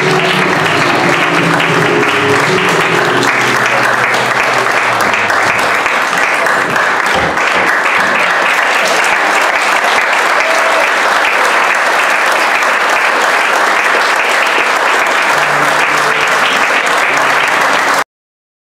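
Audience applauding loudly at the end of a flamenco performance, with the last of the music dying away under it in the first few seconds. The applause cuts off suddenly near the end.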